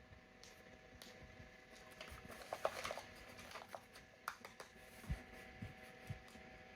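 Light rustling with scattered small clicks and taps from a plastic toy and its packaging being handled, busiest a few seconds in.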